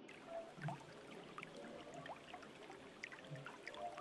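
Faint clicking and rattling of small zodiac-sign beads as a hand rummages among them to draw one out, with a few soft knocks.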